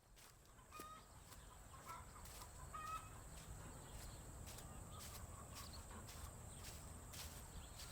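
Chickens clucking faintly, with a few short calls in the first three seconds, over a steady high hiss and a low rumble.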